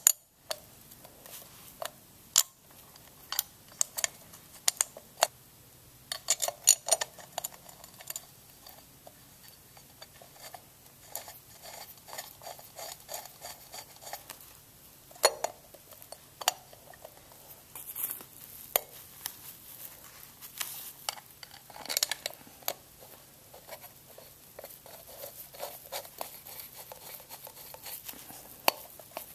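Irregular small clicks and taps of a 1932 Ford-style tail light being handled: the glass lens, gasket and metal housing knocking and shifting against each other as they are fitted together.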